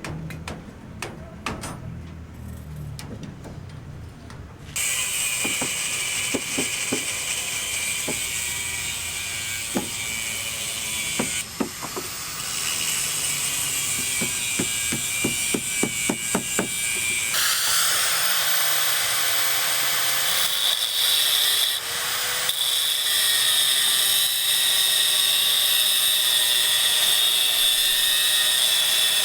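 A power tool starts about five seconds in and runs steadily with a high-pitched whine, its pitch shifting a few times. Knocks and clicks sound over it in the middle.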